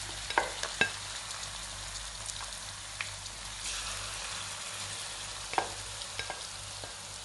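Chilli-marinated prawns sizzling in hot coconut oil in a frying pan, with a few sharp clicks near the start, about three seconds in and about five and a half seconds in.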